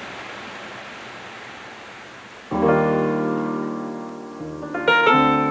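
A steady hiss of rushing stream water. About two and a half seconds in, a piano comes in with a ringing chord that slowly dies away, and another chord is struck near the end.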